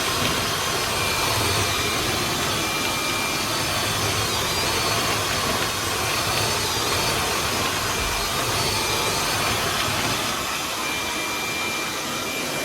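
Shop vac running steadily at full suction, a loud even rushing with a faint high whine, as it vacuums out a dryer vent.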